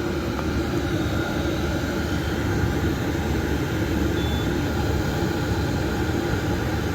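Diesel air heater running: a steady, even hum and rush from its combustion blower and burner, with a faint low tone held throughout.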